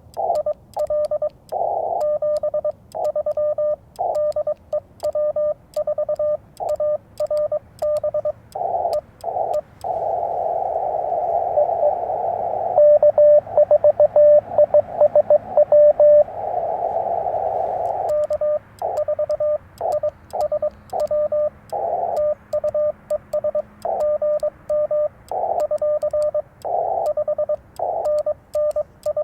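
Morse code beeping from a Yaesu FT-891 transceiver: a fast on-off keyed tone, with faint clicks of the paddle key on each element. About ten seconds in, the sending stops and receiver hiss comes up, with another station's code keyed through it for a few seconds, before the sending resumes.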